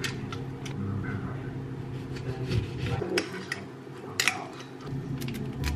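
Aluminium foil crinkling as it is pulled back, then a metal spoon clinking and scraping in a glass jar of pickled mustard seeds, a few sharp clicks, over a steady low hum.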